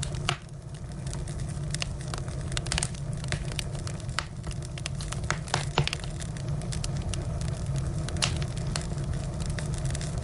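Firewood burning, crackling with irregular sharp pops over a steady low rumble; the loudest pops come in the middle and a little later.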